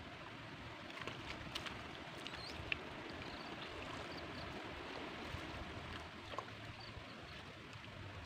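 Water washing and dripping off a seine net as it is hauled out of a shallow pond and bunched up by hand, with a steady rush and scattered small splashes and drips.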